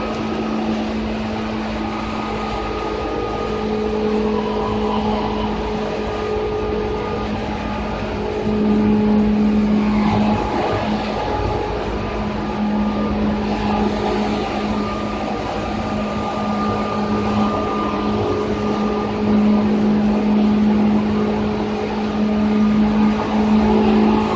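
Running sound heard inside the motor car of a Seibu 2000 series electric train: a steady low hum over rumbling wheel and rail noise, swelling a little about eight seconds in and again near the end.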